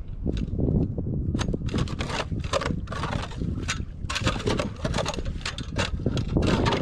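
Ice auger boring a hole through pond ice: a dense, irregular run of crunching and scraping clicks as the blades chew through the ice, over a low rumble of wind on the microphone.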